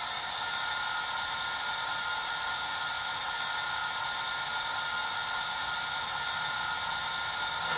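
DCC sound decoder in a model Bachmann Class 44 locomotive, playing a British Rail Class 45 'Peak' diesel sound file through a small double speaker: a steady high-pitched whine with hiss while the model stands still.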